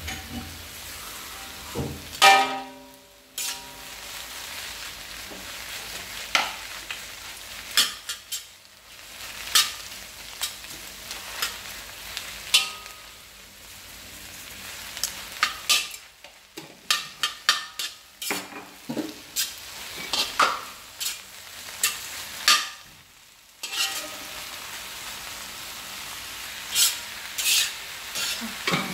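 Food stir-frying and sizzling in a pan, with many sharp clicks and scrapes of a utensil against the pan; one clang about two seconds in rings briefly.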